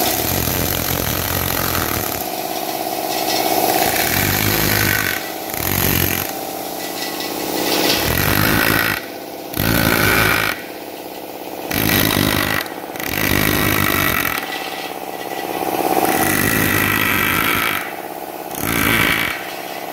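Handheld power chisel hammering into soft white stone: a rapid, steady buzzing rattle that stops and starts again in short bursts several times as the bit cuts away chips.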